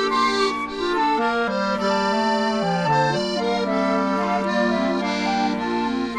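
Instrumental music of held chords and a melody moving in steps, the notes sustained without break.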